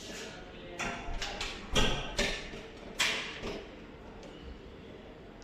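Hand tools working a locked door lock without its key: a string of sharp metal clicks and knocks, the loudest about two and three seconds in, then quieter.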